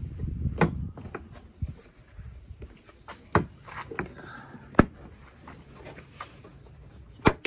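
Plastic cargo-sill trim panel of a 2012 Ford Escape being pulled up by hand, its retaining clips giving a few separate sharp snaps as they come loose, over a low rumble in the first second.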